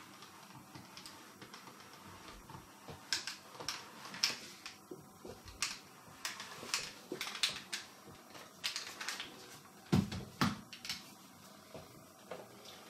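A clothes iron is pressed and slid over a sheet of paper on a cardboard backing card, giving crisp paper rustling and scraping with scattered clicks as the frayed card edge is flattened. About ten seconds in come two dull thumps as the iron is set down on the table.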